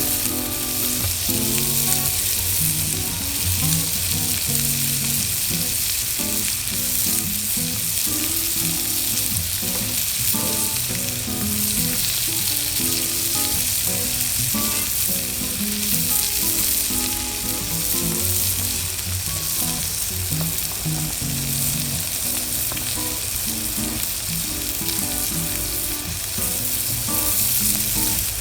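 Food sizzling and frying steadily on a hot Nanbu cast-iron steak plate, with background music underneath.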